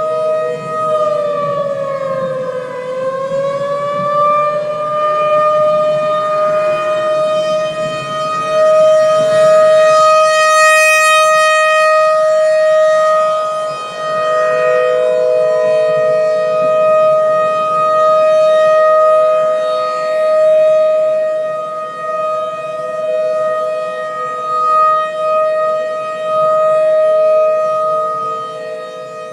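Outdoor tornado warning siren (civil defense siren) wailing, mostly holding a steady pitch. Its pitch dips and climbs back about two to three seconds in, and the loudness rises and falls.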